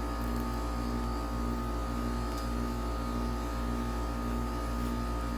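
Outdoor heat pump unit running steadily in heat mode: a continuous compressor and fan hum made of several steady tones.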